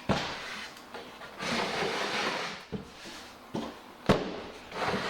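Wooden boards being handled: a few second-long scrapes of wood sliding against wood, with several sharp knocks, the loudest about four seconds in.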